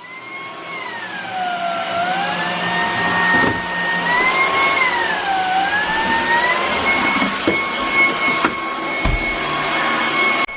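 ZIENNOQ 265W cordless stick vacuum running: a high motor whine over rushing airflow. The whine's pitch sags and recovers twice, then holds steady for the last few seconds, with a couple of small clicks.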